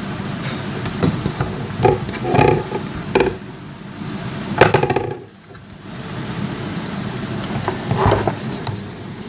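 Slime being pressed and squished by hand, giving irregular sticky clicks and pops in a few clusters, over a steady low hum.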